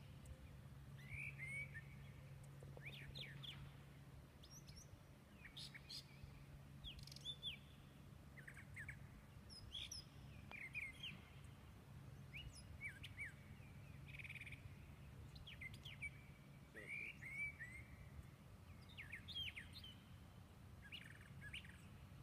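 Faint birdsong: many short, quick chirps and calls scattered through, over a low steady hum.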